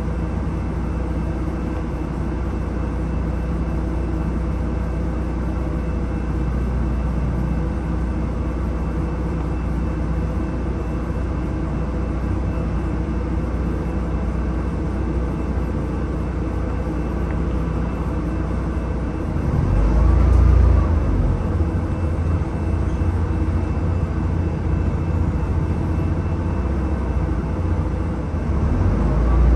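Bus running along the road, heard from inside the cabin: steady engine and road rumble, growing louder and deeper about two-thirds of the way through as it pulls away or speeds up.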